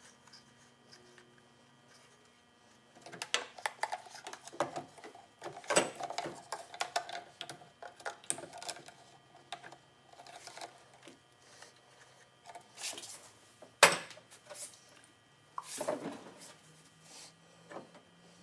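Irregular clicks, rattles and knocks of hard plastic and metal parts being handled and fitted together while a fuel pump module is assembled, with a quiet stretch in the first few seconds and one sharp, loud click about fourteen seconds in.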